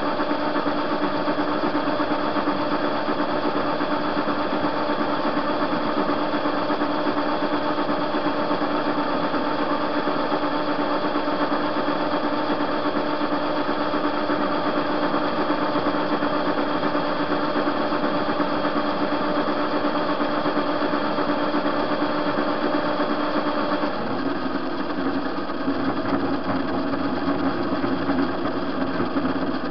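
TV-16 metal lathe running under power while turning a metal rod, a steady whine of gears and motor mixed with cutting noise. About 24 seconds in, the running note changes and the sound gets rougher and lower.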